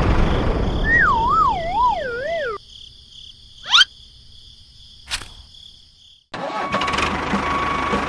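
Cartoon sound effects: a boom fading out, then a wavering whistle falling in pitch for under two seconds, a quick rising swoosh and a click. A few seconds in, an engine sound starts and runs steadily with a light regular ticking.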